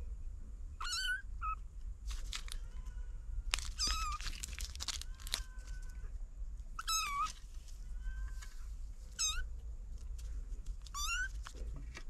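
Kittens mewing: a run of short, high-pitched mews, about eight of them, each one bending in pitch.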